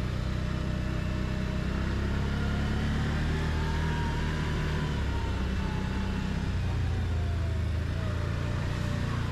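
Quad (ATV) engine running steadily under way, with a faint whine that rises slightly and eases back in the middle.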